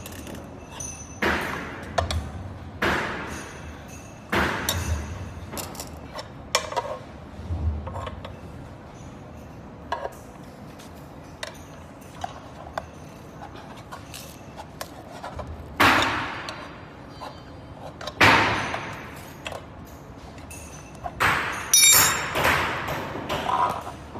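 Small parts and tools being handled in a repair: scattered clicks and clinks, with louder scraping or rubbing noises about two-thirds of the way through and near the end.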